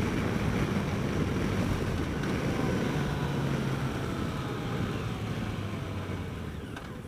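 Yamaha FJR1300's inline-four engine running at road speed, with wind and road noise on the onboard microphone; the sound fades steadily toward the end.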